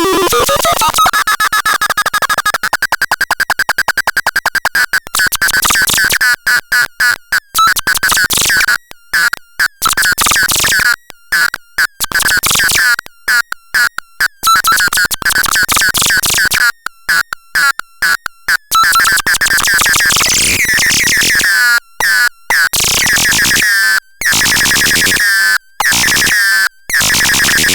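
Electronic synthesizer sounding a harsh, buzzy tone that sweeps up in pitch at the start, then holds a high wobbling pitch while being chopped into irregular stuttering bursts.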